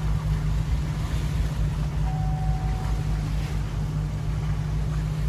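Motorboat engine running steadily underway, with water and wind noise. About two seconds in, a faint thin high tone sounds for about a second.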